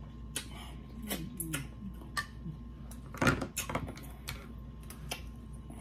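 A person eating seafood boil close to the microphone: scattered wet chewing and smacking clicks, with one louder knock about three seconds in.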